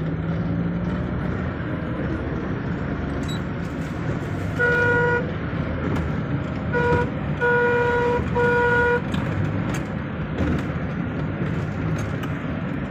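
Maruti Suzuki Alto running on a trial run after an engine change, its engine a steady low drone inside the cabin. Its horn sounds four short toots between about five and nine seconds in.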